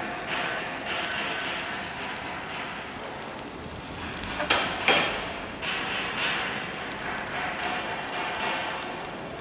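Stick (shielded metal arc) welding arc crackling steadily on steel plate, with two sharp knocks about halfway through.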